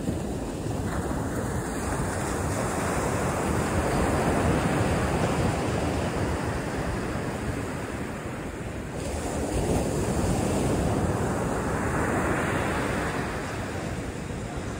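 Ocean surf washing on the beach, swelling and easing as the waves come in, with wind blowing on the microphone.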